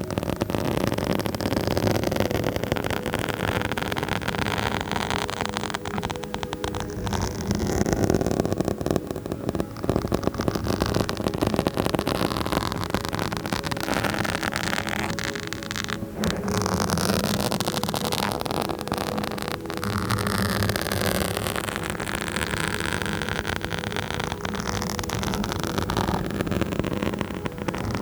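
Fingers or nails scratching and rubbing directly on a microphone: a continuous dense crackling scratch with dense fine crackle, swelling and easing every few seconds.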